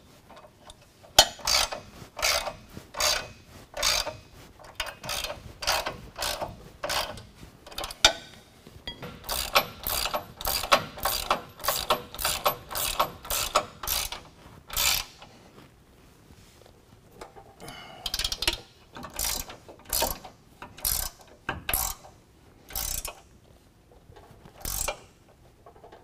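Hand ratchet and socket clicking in short bursts, about one and a half strokes a second, as the bumper bracket's 24 mm and 18 mm bolts are snugged down. There is a pause of a couple of seconds past the middle before the strokes resume.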